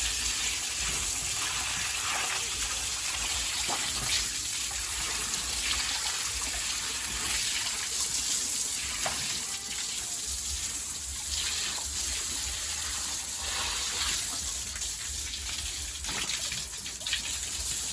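Steady, continuous rush of running water.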